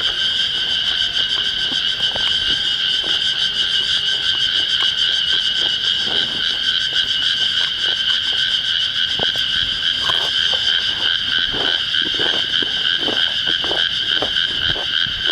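Cicadas droning in a steady, high, even buzz, with short irregular crackles and taps becoming frequent in the last five seconds.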